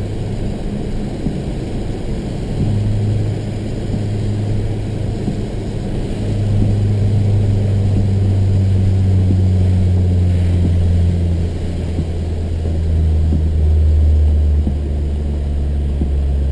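Mazdaspeed3's turbocharged four-cylinder engine droning steadily, heard from inside the cabin under way on a wet track, its pitch dropping a step twice near the end as the revs come down.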